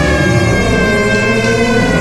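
Electronic drone music: a loud, dense stack of held tones from DIY square-wave oscillators and circuit-bent electronics, sliding slowly downward in pitch over a low rumbling drone.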